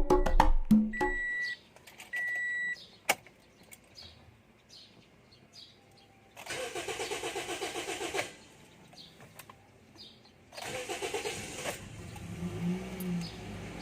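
Two short high beeps, then a 2014 Toyota Vios's starter cranking for about two seconds without the engine firing. After a pause a second, shorter crank, and the engine catches and settles into a low steady idle. This is hard starting on the first attempt, which the mechanic puts down to a clogged fuel filter.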